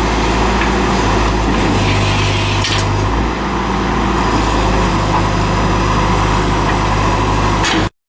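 John Deere 310SE backhoe loader's diesel engine running steadily, with a slight change in its note two to three seconds in; the sound cuts off abruptly just before the end.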